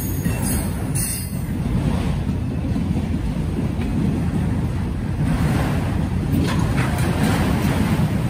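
Freight train rolling past with a steady low rumble of wheels on rail, and a brief high wheel squeal in the first second.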